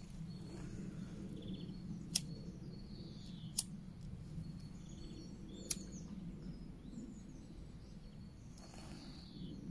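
Three sharp clicks, the second about a second and a half after the first and the third about two seconds later, from attempts to light methylated spirit in a folding camp stove. Under them runs a low steady rumble, with faint bird chirps.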